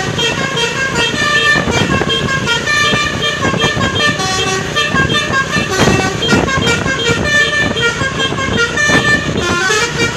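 An Indonesian bus's basuri horn, a musical air horn, playing a tune of quick stepping notes with several horn tones sounding together.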